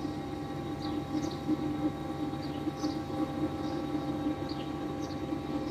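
Steady machine hum with a low drone, joined by short high chirps about once a second.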